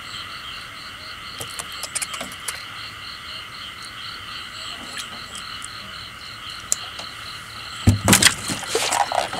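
Night-time chorus of frogs and insects: a steady high drone with a pulsing call at about four beats a second. Near the end come several louder knocks and clatter in the boat as the catfish is handled.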